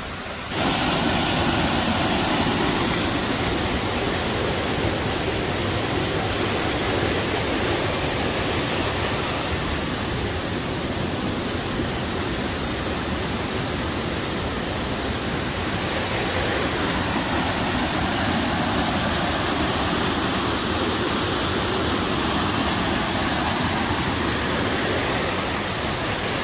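Steady rush of fast-flowing white water in a forest river, an even hiss with no rhythm that starts abruptly about half a second in.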